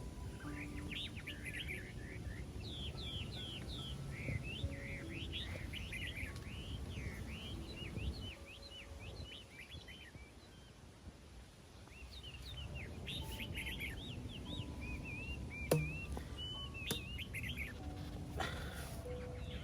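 Small birds chirping rapidly in quick, short, repeated chirps, falling quiet for a few seconds midway, over a low rumble. Two sharp clicks come near the end.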